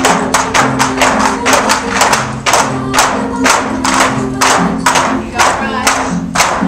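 Long bamboo poles struck on a wooden stage floor and clapped together in a steady rhythm for a bamboo-pole dance, about three sharp clacks a second, over music with held notes.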